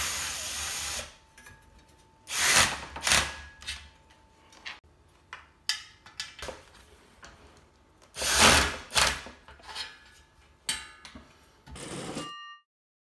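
18-volt cordless drill-driver running in several short bursts, driving screws into the table's metal frame, with small clicks and knocks of metal parts between the bursts. A brief electronic tone sounds near the end.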